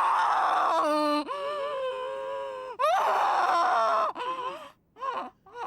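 A woman's exaggerated cartoon snoring, performed by a voice actress: a rasping breath, then a drawn-out pitched tone, a quick upward squeak, and another rasping breath, with shorter broken snore fragments near the end.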